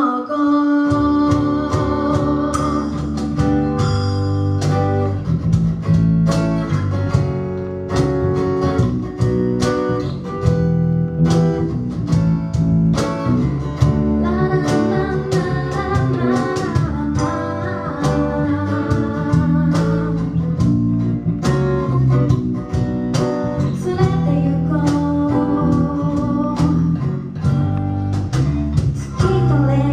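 Live pop song: female vocals, with a second voice singing harmony, over guitar and bass with a steady beat.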